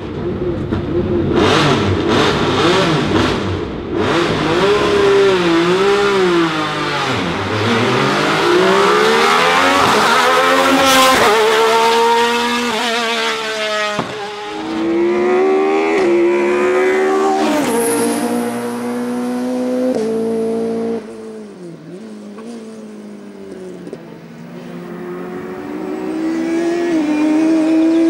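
Alfa Romeo 155 touring race car pulling away from the start and accelerating hard, its engine note rising and dropping back again and again as it changes up through the gears. After a sudden drop about three-quarters of the way in, a race car engine is heard getting louder as it approaches near the end.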